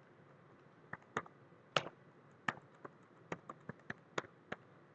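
Typing on a computer keyboard: about ten unevenly spaced keystrokes, starting about a second in.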